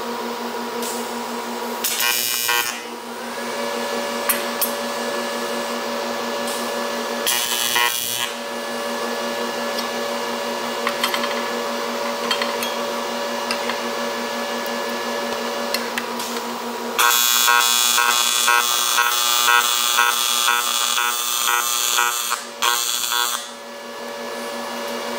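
AC TIG welding arc on aluminum, buzzing steadily as the seam is welded, with brief breaks about 2 and 8 seconds in. From about 17 seconds in the buzz turns louder and harsher with a fast flutter, then drops away near the end.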